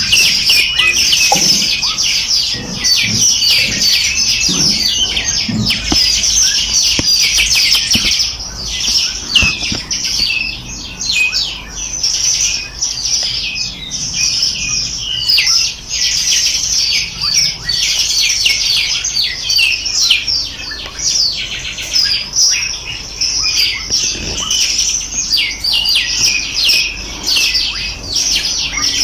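Many small birds chirping and trilling together in a dense, continuous chorus of rapid high-pitched notes.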